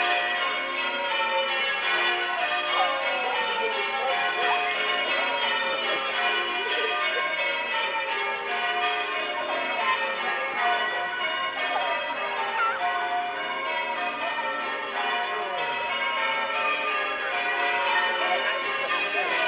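Church bells ringing changes, many strokes overlapping in a continuous peal without a break.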